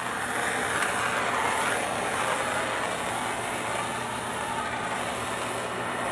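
Handheld gas torch flame burning with a steady hiss as it heats a copper sweat fitting for soldering.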